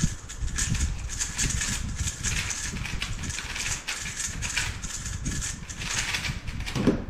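A 3x3 speedcube being turned very fast during a timed solve: a rapid, continuous run of plastic clacks and clicks, with a louder thump near the end as the clicking stops.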